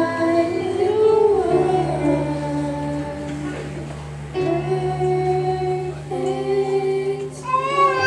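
A voice singing a slow melody over held accompaniment chords.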